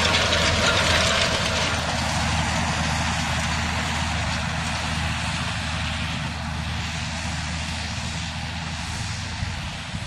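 John Deere tractor's diesel engine running steadily under load while pulling a tillage cultivator through the soil, easing off slightly toward the end.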